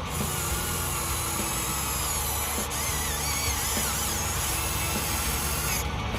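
Small electric motors of a radio-controlled construction model running with a high, wavering whine, like a tiny drill. The whine cuts off near the end.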